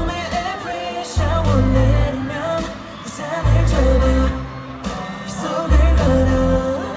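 Pop song sung live over an amplified backing track with heavy bass notes, as at a concert sound check.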